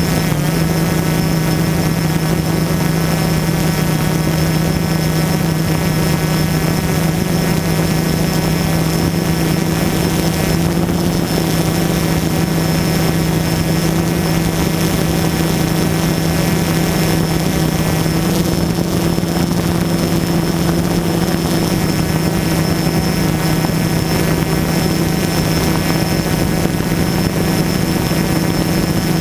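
DJI Phantom quadcopter's motors and propellers humming at a steady, unchanging pitch as it hovers, heard close up from the GoPro mounted on the drone.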